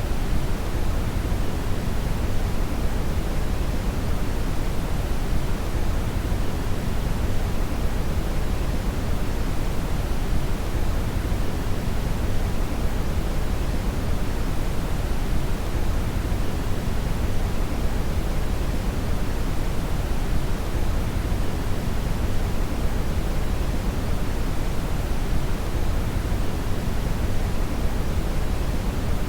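Brown (red) noise: a steady, even rumbling hiss with most of its energy in the low end, unchanging throughout.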